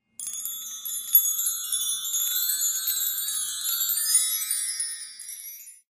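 A shimmering, high-pitched twinkle of chimes and bells, the audio sting of an animated logo intro, which fades out near the end.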